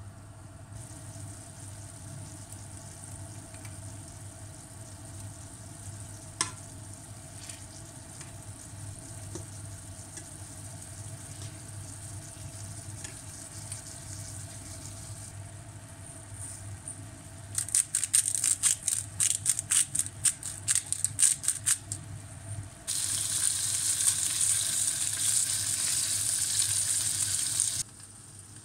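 Chicken breast pieces frying in oil in a nonstick pan: a faint steady sizzle, then a few seconds of rapid loud crackling and popping past the middle, then a louder steady sizzle that cuts off suddenly near the end.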